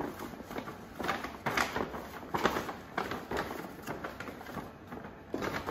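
Brown paper bag crinkling and rustling as hands break up clumps of powdered-sugar-coated cereal inside it, in irregular crackles. Near the end the folded bag is shaken, a louder, denser rustle of the cereal pieces tumbling in the sugar.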